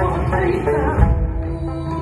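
Live bhangra-style band music with a woman's sung vocal line over drums and percussion, with a heavy drum hit about a second in.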